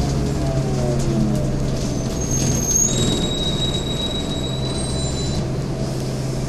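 Scania N230UD double-decker bus heard from the upper deck, its five-cylinder diesel engine running with a steady low hum while a falling whine fades as the bus slows. From about two seconds in, a thin high-pitched brake squeal lasts a few seconds, and then the engine settles to a steady idle.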